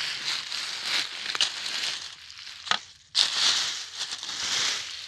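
Dry fallen leaves rustling and crunching as they are raked aside by hand, with a couple of sharp clicks in the first half and louder rustling after a brief pause about three seconds in.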